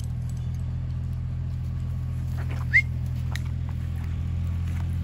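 A steady low engine hum, like a motor idling, runs throughout. A few faint clicks and one short rising chirp, about three seconds in, sit on top of it.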